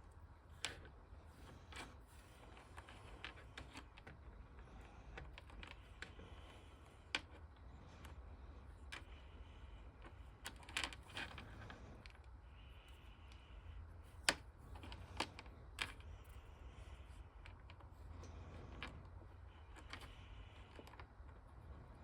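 Light, irregular clicks and taps of small hard-plastic parts being handled as a vintage G.I. Joe action figure is put back together. The sharpest click comes about two-thirds of the way in, over a low, steady hum.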